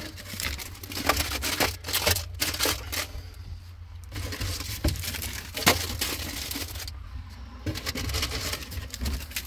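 Packaged Peeps candy being handled and set down on a plywood shelf: scattered clicks, taps and plastic crinkling, with a low steady hum underneath.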